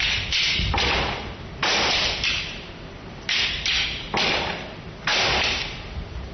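Long sticks striking each other in kalaripayattu staff sparring: a series of about seven sharp clacks at an uneven pace, each ringing on in the echoing hall.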